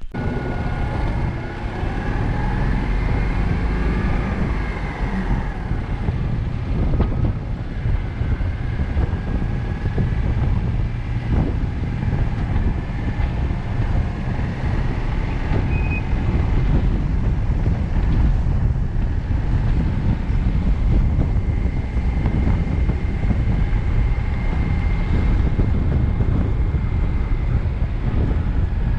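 A vehicle driving along: a steady low engine and road rumble that holds at one level throughout.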